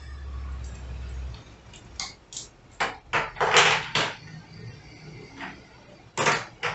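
Crossbow being handled: a low rumble for the first second or so, then a run of about eight sharp clacks and knocks, with one longer rushing noise about three and a half seconds in.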